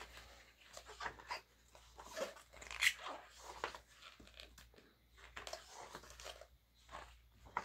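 Glossy photobook pages of a K-pop album being turned by hand: a series of soft, irregular paper swishes and rustles, the loudest about three seconds in.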